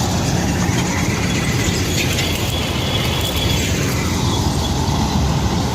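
Wheat-harvesting machine running steadily, a loud engine with the rattle of its working parts.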